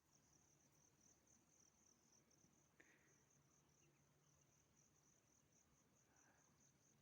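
Faint, steady high-pitched chirring of insects in the background, pulsing slightly.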